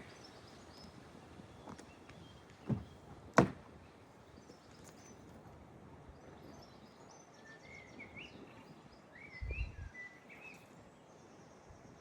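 Small birds chirping faintly now and then over quiet outdoor background noise. Two sharp knocks come close together about three seconds in, and a low thud near the end.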